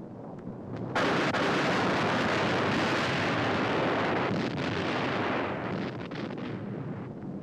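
Thunder sound effect: a rushing noise that swells, then breaks into a sudden loud crash about a second in, followed by a long rumble that slowly dies down.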